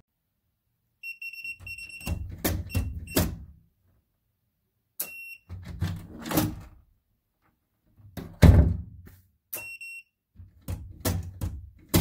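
Fingerprint keypad lever door lock beeping and working: a run of short, high electronic beeps about a second in and single beeps near five and ten seconds in, each followed by clicks and clunks of the lever and latch. The loudest clunk comes about eight and a half seconds in.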